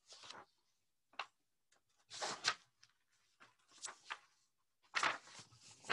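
Paper rustling as the pages of a picture book are turned and handled, in several short bursts.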